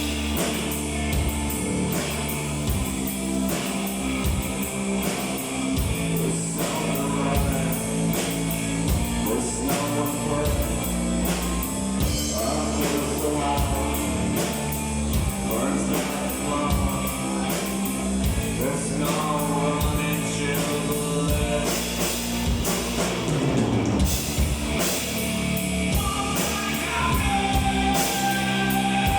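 Live rock band playing with electric guitar, bass and drum kit, a melodic line rising and falling over the beat and a long held note near the end.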